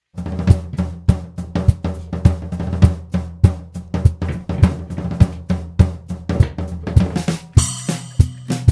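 Background music: a drum kit playing a steady beat over a bass line, with a cymbal wash near the end.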